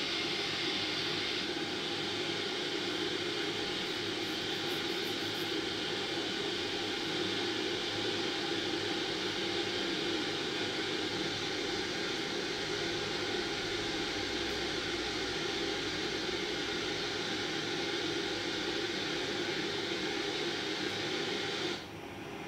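Steady rushing roar of the Marmore Falls' white-water cascade. Near the end it drops suddenly to a quieter hiss.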